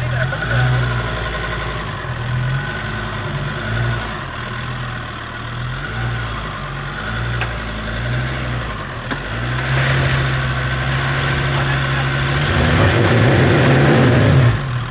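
Off-road 4x4's engine running at low revs under load, its pitch rising and falling as the throttle is worked. Near the end it gets louder and rougher before cutting off sharply.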